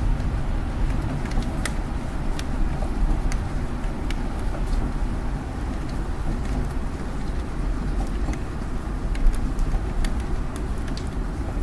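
Rain falling on a city: a steady low rumble of road traffic under an even wash of rain, with scattered single drops ticking sharply at irregular moments.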